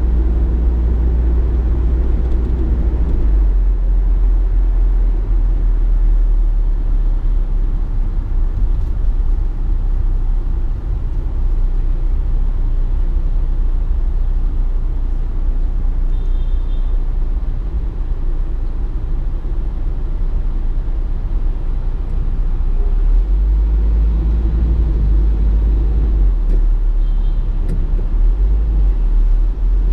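Car running with a steady low rumble of engine and road noise. The pitch of the rumble drops about three seconds in and rises again near the end.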